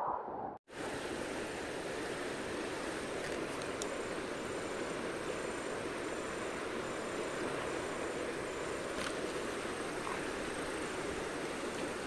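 Steady rush of flowing river water at the bank, an even hiss with a few faint clicks. The sound drops out briefly just under a second in.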